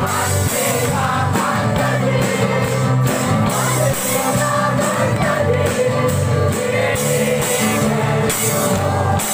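Loud music with singing and a steady beat.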